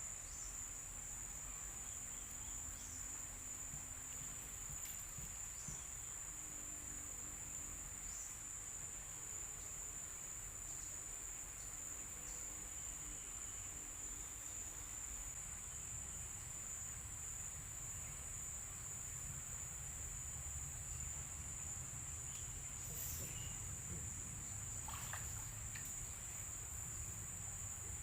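A steady, unbroken high-pitched insect chorus, with a faint low rumble underneath and a few small clicks near the end.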